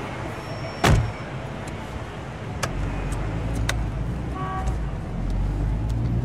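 Car sound effects: a sudden loud thump about a second in, a couple of sharp clicks, then a low engine rumble that starts near three seconds in and carries on, with a short horn-like tone a little after four seconds.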